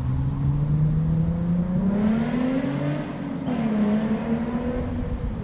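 A motor vehicle's engine accelerating, its pitch rising steadily for about three seconds and then dropping and levelling off.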